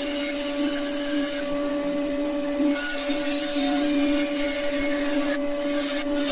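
Bandsaw running with a steady motor hum while its blade cuts a curve in a scrap pine board, fitted with a blade the woodworker calls the wrong one for this cut. The cutting hiss comes and goes, easing off twice as the wood is steered.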